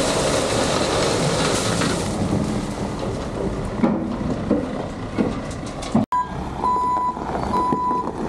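Heavy machinery engine running with a few knocks and clatters, then a vehicle's reversing alarm beeping about once a second near the end.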